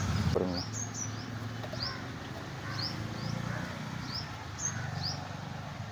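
A small bird calling over and over: short, high, rising chirps, about two a second.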